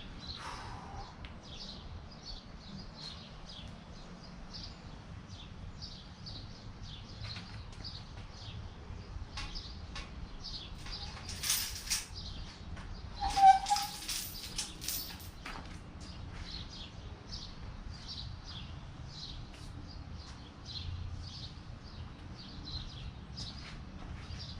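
Small birds chirping repeatedly over a low steady background hum, with a few sharp metallic clinks and knocks about halfway through, one leaving a short ring.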